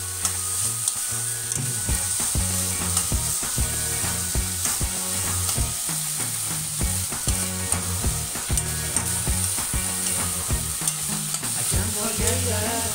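Whole mung beans frying in oil in a metal kadai, sizzling steadily while a metal spoon stirs and scrapes them, with many sharp clicks of the spoon against the pan.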